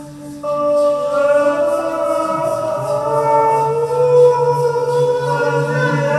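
Improvised ambient vocal music built from layered, live-looped sung tones held over a steady low drone. A louder new held note comes in about half a second in, and a voice glides upward in pitch around the middle.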